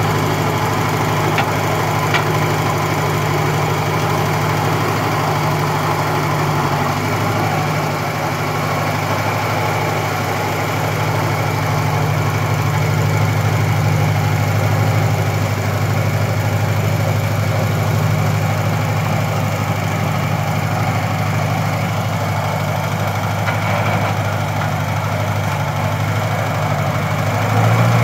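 Massey Ferguson 40 tractor's gasoline engine running steadily while the tractor drives slowly, growing a little louder near the end.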